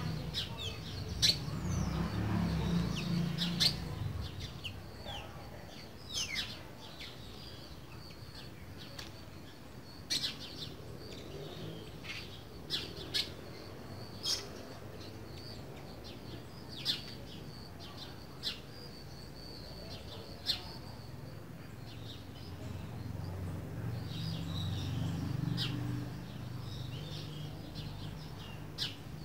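Green-winged saltator (trinca-ferro) giving short, sharp chirping notes, scattered irregularly and some in quick pairs. A low background rumble swells near the start and again near the end.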